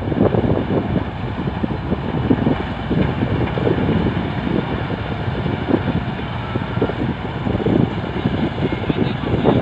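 Balkar B 546 combine harvester running under load as it cuts and threshes a standing grain crop: a steady engine and machinery drone.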